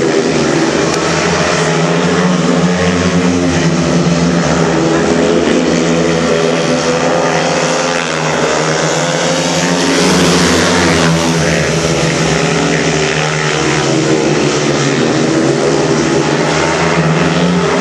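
Four speedway motorcycles racing around the track at full throttle, their engines blending into one loud, continuous drone that wavers in pitch as the bikes go through the bends.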